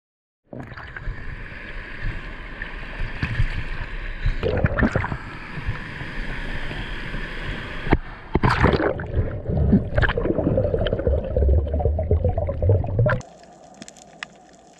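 Rough surf breaking and water sloshing and splashing right at the camera at the sea surface, with several louder surges. About 13 seconds in it drops suddenly to a quiet underwater hiss with faint scattered clicks as the camera goes under.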